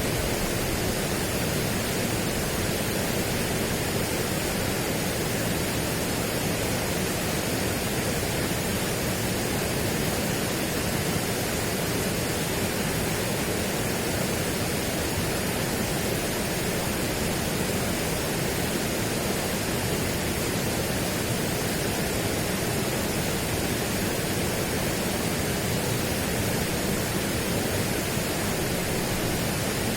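Steady, unchanging rushing noise spread evenly from low to high pitches, with no distinct events.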